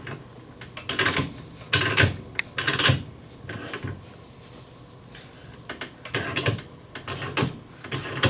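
Hand ratchet clicking in short bursts as the screw of a C-frame ball joint press is cranked down, pressing a heavy-duty ball joint into a UTV's suspension A-arm, with a lull in the middle.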